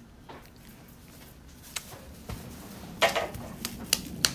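Handling noise on a smartphone microphone: a quiet room, then a few sharp knocks and rustles in the last second and a half as the phone is moved about.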